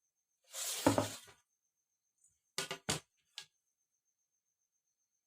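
Handling noise at a fabric-drafting table: a short rustling scrape, then three sharp taps in quick succession, as a ruler or marking tool is moved and set down on the cloth.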